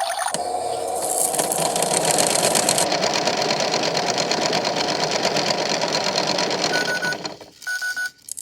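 Toy washing machine's small electric motor running steadily with a fast rattle as it churns a cotton shirt, then stopping about seven seconds in. Two short beeps near the end.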